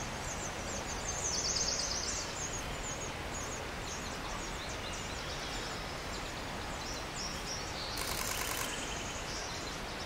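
Steady background noise with small birds' high-pitched chirps and a rapid trill in the first few seconds, then scattered chirps. About eight seconds in, a short, fast run of high clicks.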